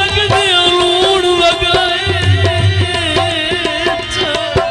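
Live folk music: a male singer holds a long, wavering note over harmonium, with tabla strokes beating underneath.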